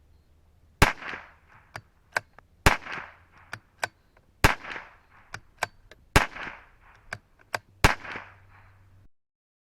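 Five shots from a CZ457 bolt-action .22 LR rifle firing standard-velocity ammunition, a little under two seconds apart, each report with a short ringing tail. Between shots come two quick clicks of the bolt being worked to chamber the next round.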